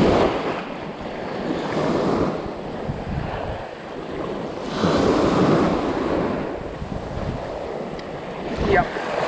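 Small waves breaking and washing up the sand at the shoreline, surging in several swells a few seconds apart.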